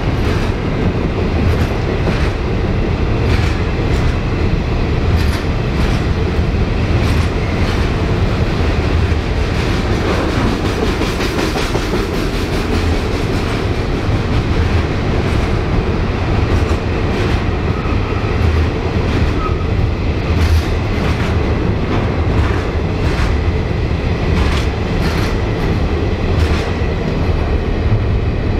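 Freight train wagons rolling past, with the wheels clicking over rail joints at an uneven rhythm over a steady, loud rumble.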